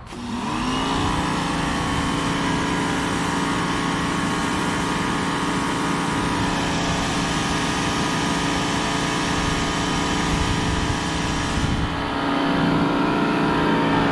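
Electric pressure washer's motor and pump starting up and running steadily with an even pitched hum, getting a little louder near the end.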